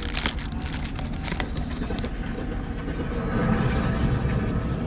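Steady low engine and road rumble of a moving coach bus, heard from inside the cabin, getting slightly louder about three seconds in. A few brief crinkles come from the paper snack box and plastic-wrapped pastry being handled, the clearest just after the start and about a second and a half in.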